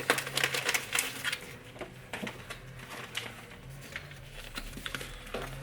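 Crinkly snack packaging being handled and opened: a quick run of sharp crackles, then scattered lighter crackles and clicks, over a faint steady hum.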